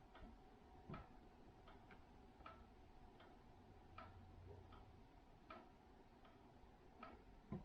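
Faint, steady ticking of a clock, about one tick every three-quarters of a second, over a quiet room. There is a soft knock near the end.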